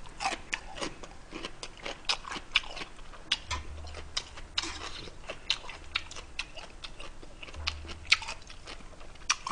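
Close-up mouth sounds of a person eating instant jjajang noodles: chewing and wet smacks, with irregular clicks of metal chopsticks against the bowl and pot.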